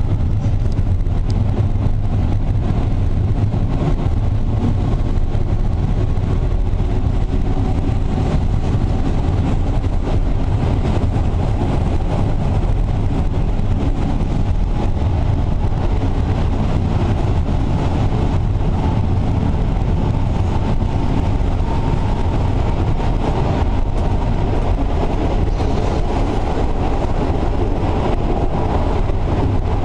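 Passenger train running along the track, heard from on board: a steady, loud low rumble of wheels and carriage, with a faint tone rising slightly in pitch over the second half.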